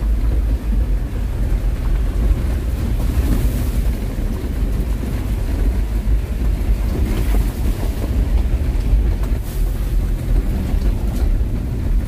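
Steady low rumble of a car's engine and tyres heard from inside the cabin while driving.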